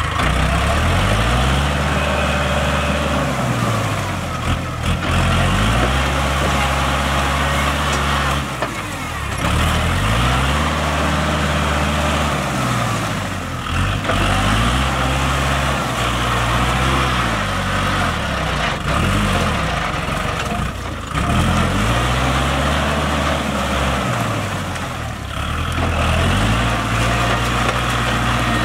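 Kubota L5018 tractor's diesel engine working under load while tilling a flooded rice paddy, its pitch rising and falling every three to four seconds. A steady rushing noise of the rotary tiller churning mud and water runs underneath.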